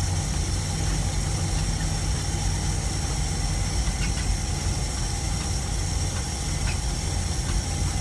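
Dodge V8 engine of a 1965 Clark Cortez motorhome running steadily at low speed as it is driven, a low, even rumble.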